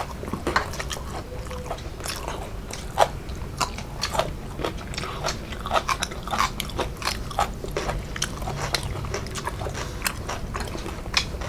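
A person chewing food close to the microphone, with many short, crisp crunches at an irregular pace.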